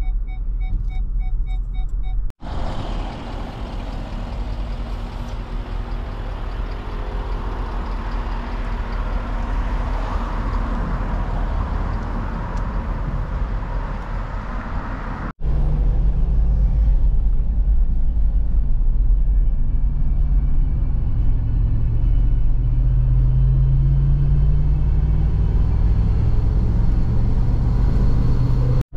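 Vehicle driving at road speed: steady engine and road noise, split into three stretches by two sudden cuts. After the second cut, a louder low engine drone slowly rises in pitch.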